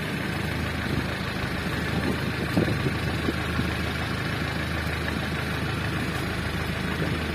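Fishing boat's engine running at a steady, even idle.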